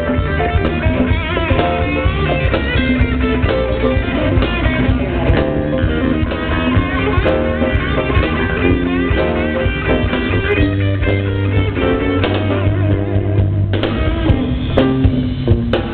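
Live band playing, with electric guitar over a drum kit.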